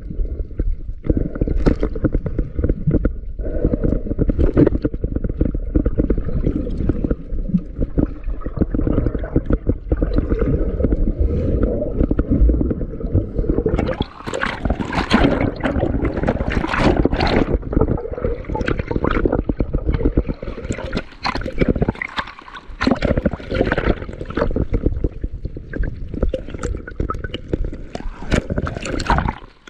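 Underwater gurgling and bubbling, a dense, crackly water noise, with louder bursts of bubbles about halfway through.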